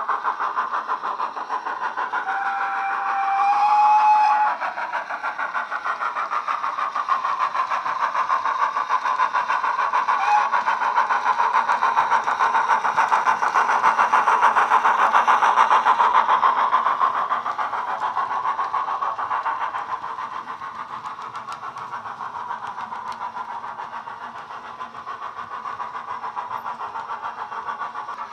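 The Wheeltappers DCC sound decoder in a Hornby 9F model steam locomotive plays rapid steam exhaust chuffs through its small speaker, loudest midway as the locomotive passes close by. A whistle sounds for about two seconds near the start.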